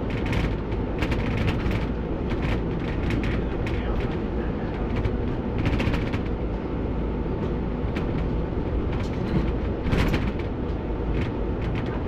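A single-deck bus on the move, heard from the driver's cab: a steady low engine and road rumble with frequent short knocks and rattles.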